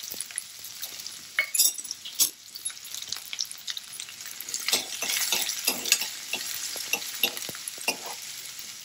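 Diced onion sizzling in hot oil with whole spices in a steel kadhai, while a steel ladle stirs it, scraping and clicking against the pan many times, mostly in the second half.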